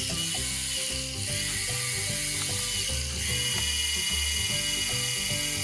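The battery-powered toy drill of a Play-Doh Doctor Drill 'n Fill set, a small motor whirring steadily as its bit spins into a Play-Doh tooth to bore a cavity, over background music.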